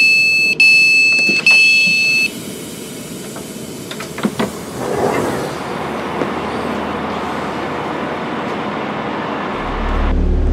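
Door-release alert on an Avanti West Coast Class 390 Pendolino: three long, high beeps as the doors are released at the platform, followed by a few clicks and then steady station noise. A low hum comes in near the end.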